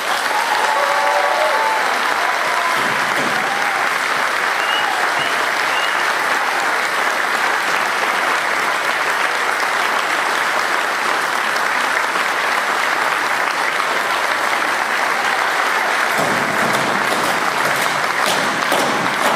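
Audience applauding steadily at length, with a few cheers in the first couple of seconds.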